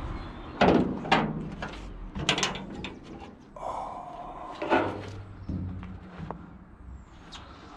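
A series of heavy clunks and knocks, like doors or hard objects being shut and moved, with a short scraping squeal in the middle.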